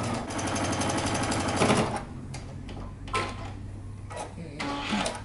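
Domestic electric sewing machine running a long basting stitch through knit fabric, stopping about two seconds in. A few light clicks follow.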